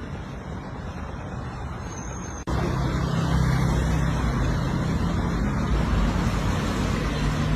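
Steady road-traffic noise, vehicles running on a street. An abrupt cut about two and a half seconds in, after which it is louder.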